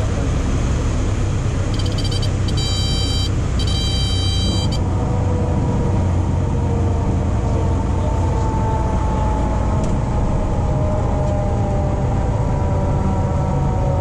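Cabin noise of a Piper PA-38 Tomahawk landing on a wet runway: a steady engine and propeller drone with a heavy low rumble. A high warning tone beeps in three short stretches between about two and five seconds in, and after that the engine note falls slowly.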